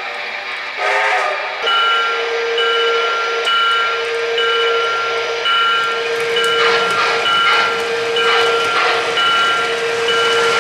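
An O-gauge model steam locomotive's onboard sound system gives a short whistle toot about a second in. Then comes a steady steam hiss with a repeating tone, and from about halfway a regular chuffing of about two beats a second.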